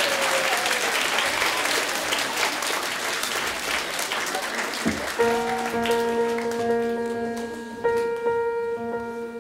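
Audience applause that thins out over about five seconds. A keyboard then starts playing long held notes, the opening of a song.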